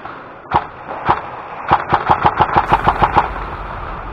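Airsoft guns firing: two single shots about half a second apart, then a rapid string of about ten shots at roughly seven a second.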